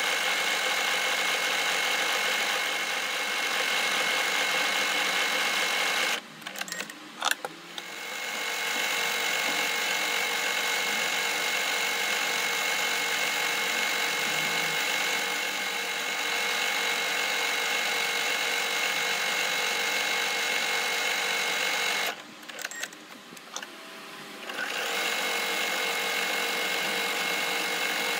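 Usha Janome Dream Maker 120 computerized sewing machine stitching with a steady whine. It stops twice, about six seconds in and again around 22 seconds, with a few clicks during each pause, then picks back up to speed.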